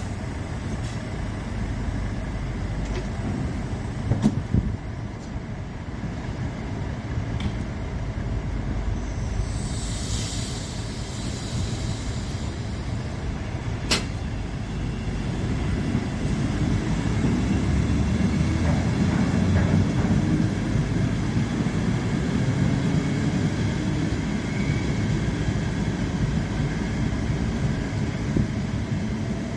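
Mat '64 electric multiple unit running on the rails: a steady low rumble, with a hiss lasting a few seconds about ten seconds in and a couple of sharp clicks. The rumble grows louder about halfway through.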